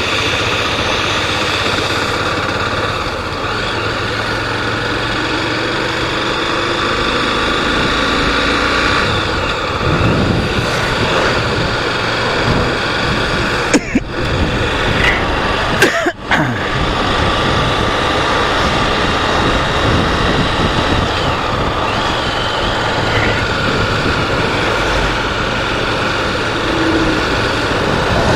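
Honda Twister 250 cc single-cylinder motorcycle engine running steadily while being ridden, with a couple of brief sharp interruptions about halfway through.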